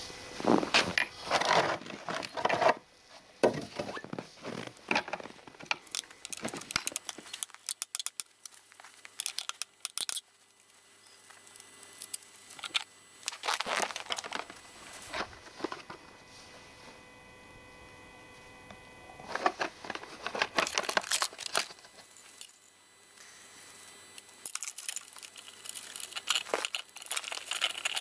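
Handling noise from working on a Husqvarna 254 XP chainsaw's bar and chain by hand: clicks, metallic rattles and crinkling in about six separate spells with quiet gaps between them.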